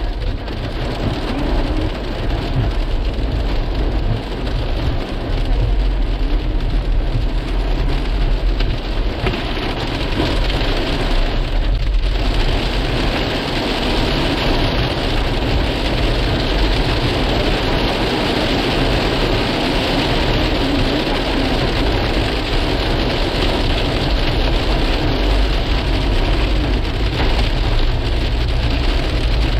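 Pea-sized hail and rain pelting down on hard surfaces in a dense, steady patter, with a low rumble underneath.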